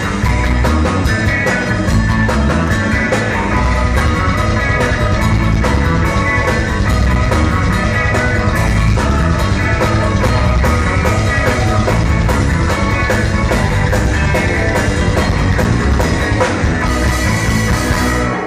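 Rock band playing live through a loud PA: electric guitars, bass and drum kit, with the song stopping abruptly at the very end.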